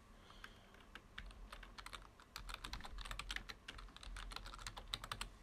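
Computer keyboard typing: a quick run of keystrokes as a password is typed into one field and then again into the confirm field, starting about a second in.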